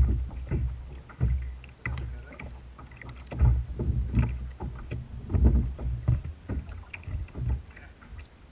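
Water slapping and knocking against a plastic kayak hull in a light chop: irregular low thumps, several a second, with small clicks between them.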